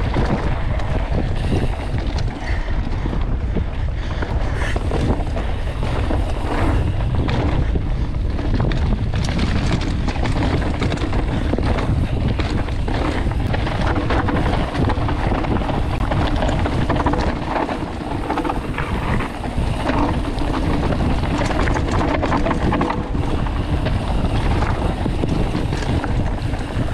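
Mountain bike riding fast down a dirt forest trail: wind rushing over the microphone, tyres running over dirt, and many short knocks and rattles as the bike hits bumps and roots.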